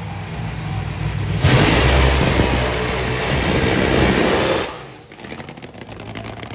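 Drag racing car running at full throttle: after a lower engine sound, a very loud blast starts about a second and a half in, lasts about three seconds and cuts off sharply.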